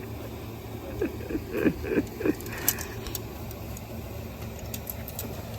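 A steady low motor hum, like an idling engine or generator, with a few short falling calls about a second in and scattered sharp clicks in the second half.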